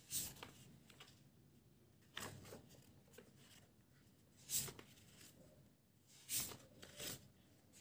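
Pages of a paperback study book being turned by hand: faint paper rustles, about five of them, spaced a second or two apart.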